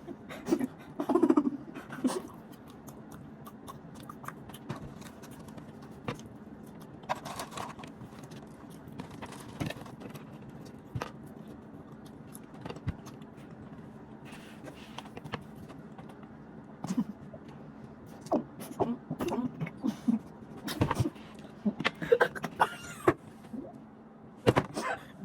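Close-up eating sounds: scattered mouth clicks and smacks over a faint steady hum, with a few brief voice sounds, busier in the last few seconds.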